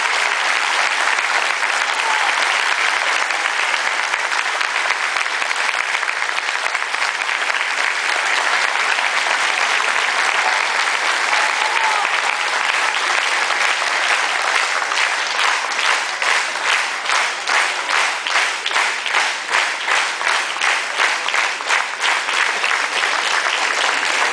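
Audience applauding in a hall. About fifteen seconds in, the clapping falls into a steady rhythmic beat in unison, about two claps a second.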